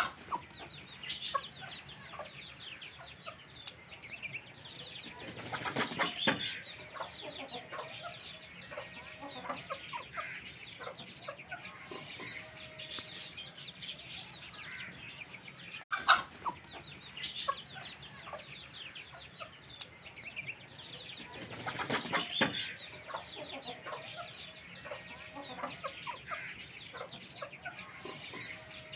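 Chickens clucking and calling continuously while fighting, with two louder bursts of wing flapping, about six seconds in and again about twenty-two seconds in.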